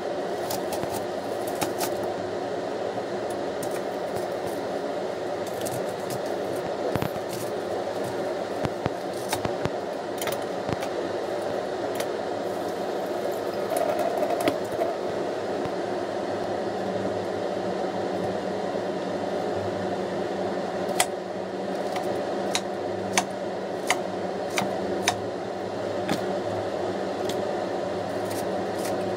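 Knife cutting through soaked sea cucumber and tapping on a wooden chopping board: scattered sharp taps, stronger and more frequent near the end, over a steady background hum.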